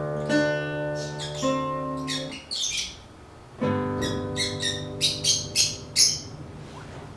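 Acoustic guitar chords ringing out, broken by a short pause near the middle, with birds giving short squawking calls over the music, a run of about five sharp calls in the second half.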